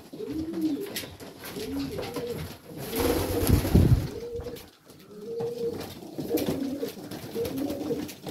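Domestic pigeons cooing, many rising-and-falling coos overlapping one another in a small loft. A brief louder rustling burst comes about three seconds in.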